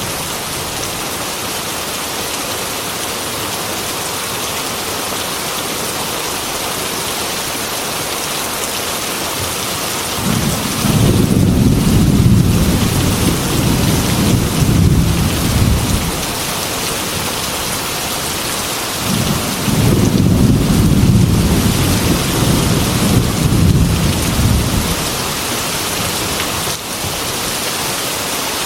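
Steady heavy rain hitting a glass window, with thunder rumbling twice: one long low roll from about a third of the way in, and a second a few seconds after it ends.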